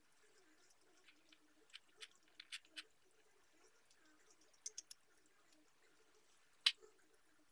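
Cat eating from a bowl: faint, irregular clicks and smacks of chewing, in small clusters, with one sharper click near the end.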